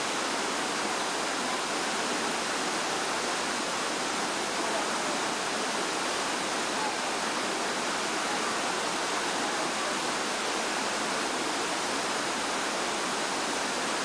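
Waterfall pouring over rocks close by: a steady, unbroken rush of water.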